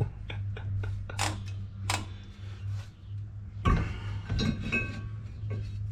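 Scattered light metallic clinks and clicks, like tools and small metal parts being handled, over a steady low hum.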